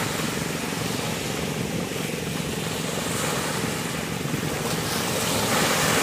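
Small waves breaking and washing onto a sandy beach, with wind rumbling on the microphone; the surf swells a little near the end.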